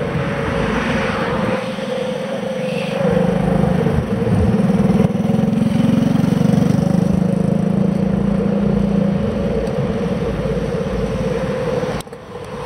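Steady rush of wind and road noise picked up by an action camera mounted on a moving bicycle. A lower hum swells in the middle, and the noise drops off sharply about a second before the end.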